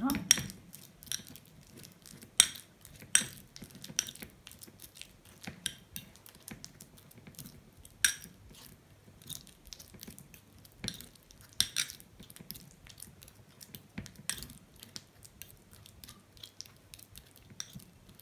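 Metal fork mashing a banana in a small ceramic bowl: irregular clicks and taps of the tines against the bowl, a few of them louder, with soft mashing between.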